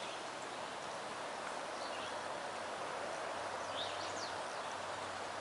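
Outdoor ambience: a steady background hiss with a few short bird chirps, about two seconds in and again near four seconds.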